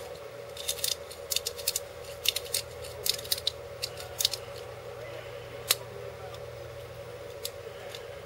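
Irregular sharp plastic clicks and rattles of Bakugan toy balls being handled, a dozen or so over the first four seconds and a couple more later, over a steady low hum.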